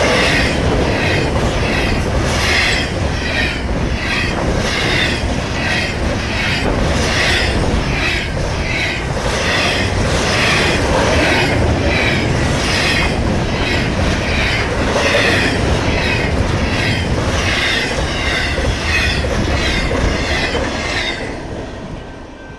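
Intermodal freight train's cars rolling past close by, wheels clicking over rail joints about twice a second with high wheel squeal; the sound falls away near the end.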